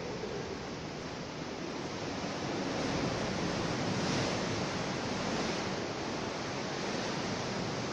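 Ocean waves washing into a coastal cave: a steady rushing noise that swells slightly midway.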